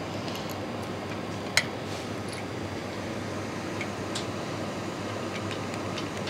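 Steady room hum with a few light clicks and taps from a micropipette and a glass reaction tube being handled, the sharpest about one and a half seconds in.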